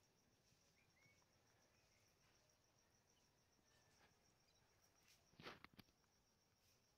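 Near silence: a faint steady high insect trill in the background, with a few faint short chirps. A brief rustling burst comes about five and a half seconds in.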